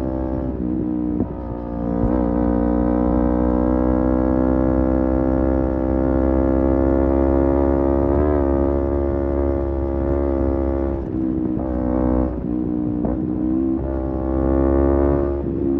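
Kawasaki Z250 engine running through an aftermarket SeaPro muffler at a steady cruise, its pitch slowly climbing. Near the end the throttle closes and reopens a few times, so the engine note drops and climbs again.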